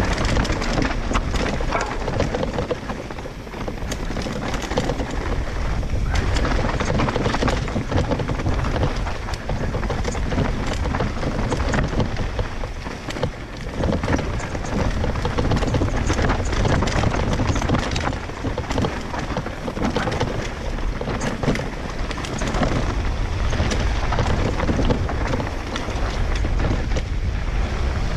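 Mountain bike ridden fast down a rough, rocky trail: wind buffeting the microphone over the running noise of tyres on dirt and stones, with many small rattles and knocks from the bike.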